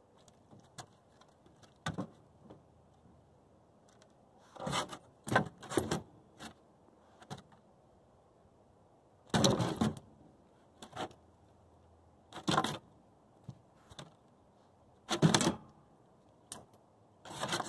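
A dog sniffing and pawing at the wooden deck boards where the laser dot sits, in short irregular bursts separated by quiet.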